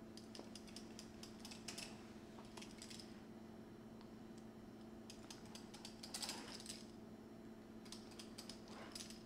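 Faint clicks and taps of a pizza cutter's wheel pressing through a log of rolled pastry onto a cutting board, in several short runs of quick ticks. A steady low hum sits underneath.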